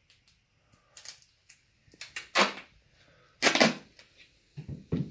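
Duct tape pulled off the roll in two short rasping rips, among smaller clicks and knocks of handling.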